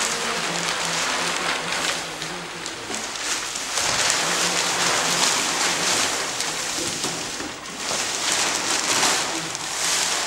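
Thin plastic sheeting, wet with paint, rustling and crinkling continuously as a body rolls in it and it is dragged and bunched up. It gets louder about four seconds in.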